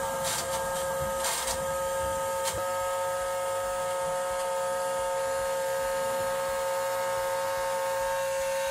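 Electric bed-lift actuator motor of a Tamiya RC tipper truck running with a steady whine as the tipper bed lowers. The whine is a bit noisy from the newly built gearing, which the owner thinks might quieten down as the grease wears in.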